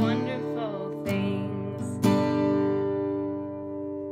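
Acoustic guitar strummed by a singer: her last sung note fades out just after the start, then two strummed chords about a second apart, the second left to ring and slowly die away as a closing chord.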